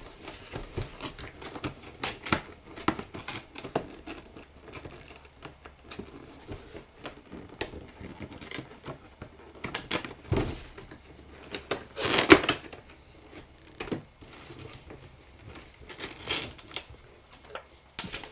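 Cardboard box and clear plastic packaging being handled: a string of light clicks, taps and rustles, with one louder rustle about twelve seconds in.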